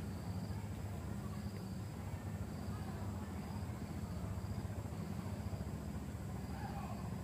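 Insects chirping in short, faint, repeated notes over a steady high drone, with a low steady rumble underneath.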